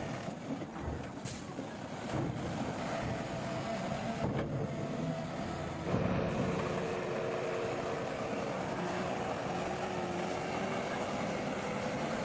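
Bulldozer's diesel engine running as it works, growing louder with a higher note from about six seconds in. A few short knocks sound in the first half.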